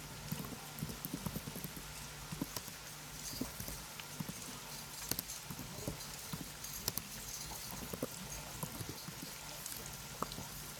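Typing on a computer keyboard: irregular, quick clicks of keystrokes, some louder than others, over a steady low hum and hiss.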